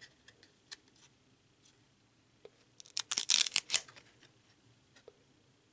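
Glossy trading cards being handled and pried apart, with a few faint clicks and taps. About three seconds in comes roughly a second of loud scraping rustle as the stuck-together cards come apart.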